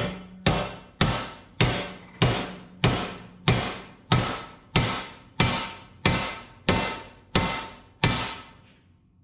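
Hammer striking a scored piece of thick steel to bend it along the score line, about fourteen steady blows, each ringing briefly, stopping about a second before the end.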